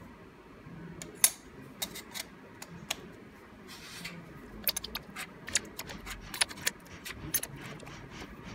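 Small 1.2 mm stainless steel tag plates being set one by one into the pockets of a metal holding frame: a string of sharp, irregular metallic clicks and taps.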